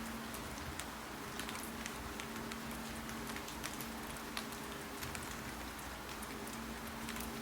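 Steady rain with irregular clicks of keyboard typing, the keystrokes coming in uneven runs over the rain's even hiss.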